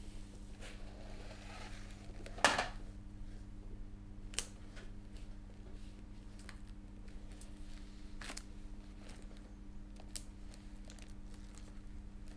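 Paper and a hardcover book being handled: a loud rustling knock about two and a half seconds in, then scattered light clicks and page rustles, over a low steady hum.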